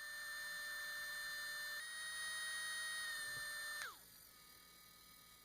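3Doodler 2.0 3D pen's small feed motor running with a steady high whine, then winding down in pitch and stopping a little under four seconds in.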